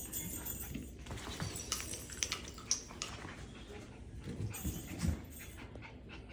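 Biewer Terrier puppies playing, with scattered small clicks and taps and a couple of short low puppy noises about four and a half to five seconds in.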